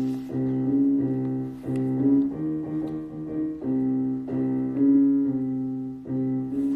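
Piano music: a run of held chords, with a new chord struck every half second to second.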